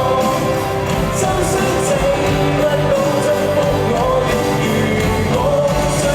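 Live pop-rock concert music: a singer over a full band.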